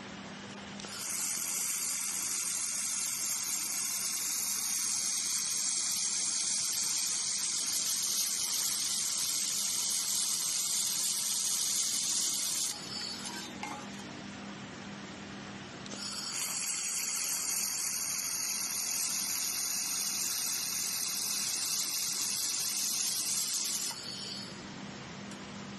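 Handheld fiber laser welder running along the seams of a sheet-steel box: a steady hissing sizzle of the weld and its gas flow, in two runs of about eleven and eight seconds with a short pause between, over a low steady hum.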